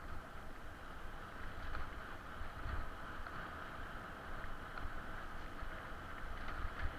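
Bicycle rolling fast along a dirt forest trail: a steady low rumble from the tyres and frame, with a few light clicks and rattles.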